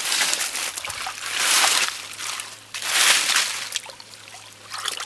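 Hands groping and splashing in a shallow muddy pool, the water sloshing and dribbling, with two louder swells of splashing about a second and a half and three seconds in.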